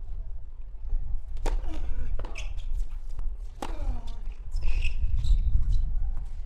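Tennis ball struck back and forth by rackets in a rally, a sharp pop on each shot, with a player's grunt falling in pitch on two of the strikes.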